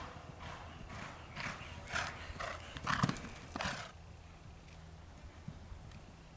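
Hoofbeats of a horse galloping on turf, about two strides a second, loudest about three seconds in and then dying away.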